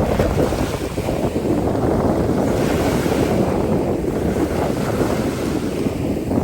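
Wind buffeting the microphone, a loud steady rumble, over the wash of sea surf at the beach.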